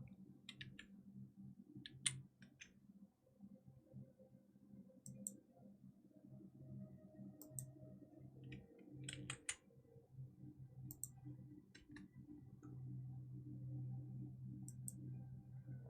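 Faint, scattered clicks, a dozen or so at uneven intervals, over a low steady hum in a small quiet room.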